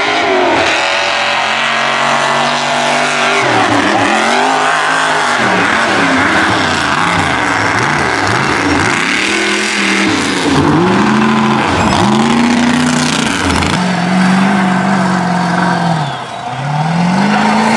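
Lifted mud truck's engine revving hard and dropping off again and again, about once a second in the middle, then held at high revs for longer stretches near the end. Its tires spin in loose dirt.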